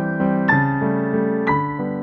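Background music: a slow, gentle piano melody, single notes struck and left to ring over held lower notes.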